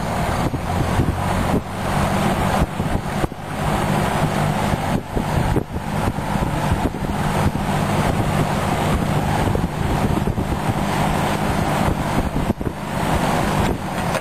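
Mid-1960s Lakewood box fan running at speed: a steady electric-motor hum under a broad rush of air from the blades.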